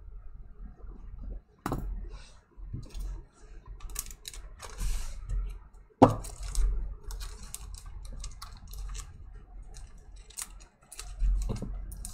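Trading cards and rigid plastic toploaders being handled on a table: scattered clicks, taps and rustles, with a sharp knock about two seconds in and a louder one about six seconds in.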